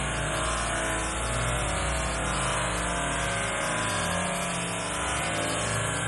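Small waterfall pouring over a rock ledge and splashing into a pool: a steady, even rush of water.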